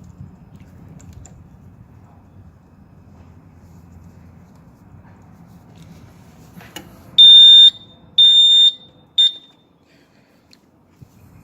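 Faint handling noise, then a sharp click, then a fire alarm sounder gives three loud, high, steady beeps about half a second long and half a second apart, the third cut short.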